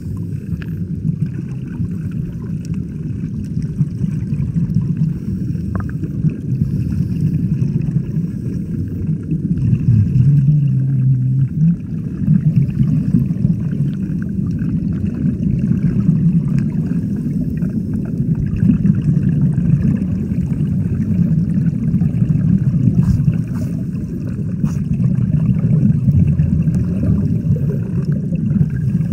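Water rushing and gurgling heard through a submerged waterproof camera: a steady, muffled low rush with little high sound.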